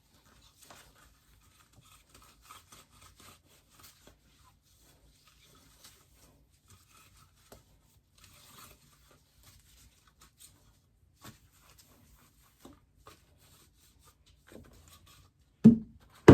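Faint rustling, rubbing and light clicks and taps of small things being handled, with a louder thump near the end.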